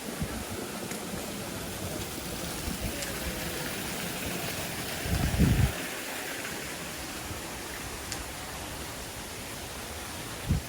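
Steady rush of falling water from a waterfall, an even hiss with no pauses. About five seconds in, a brief low rumble rises over it.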